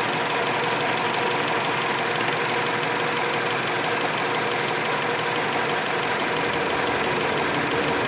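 2011 Dodge Avenger's 2.4-litre four-cylinder engine idling steadily, with cylinder 3's ignition coil removed and a test light plugged into its connector in its place.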